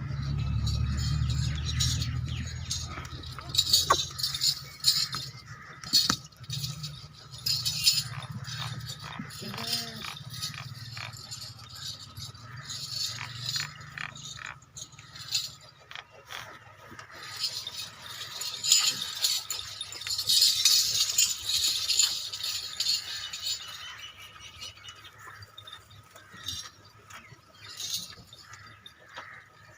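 Goats in a pen with irregular metallic rattling and clinking throughout and a short bleat-like call about ten seconds in.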